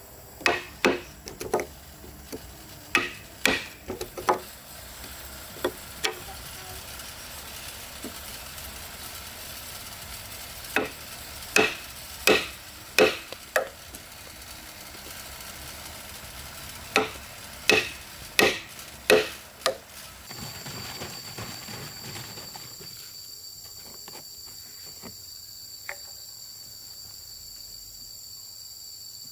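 Sharp knocks in quick clusters of two to five, several seconds apart. About two-thirds of the way in they stop, and a steady high insect drone takes over.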